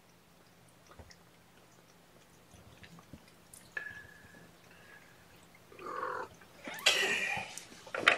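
Three-week-old kittens mewing: a thin high cry about four seconds in, then a few louder short mews near the end.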